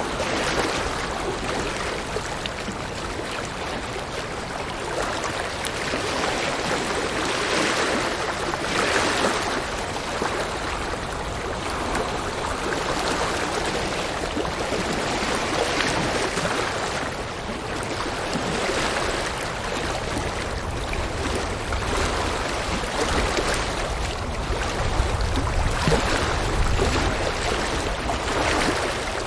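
River water rushing steadily over rocks, swelling and easing every few seconds, with a deeper rumble joining in the second half.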